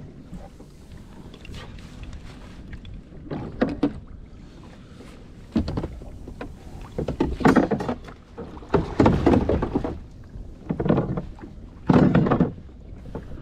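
Water sloshing and slapping against a fishing kayak's hull in a swell. It comes in irregular noisy bursts, about half a dozen, the loudest near the end.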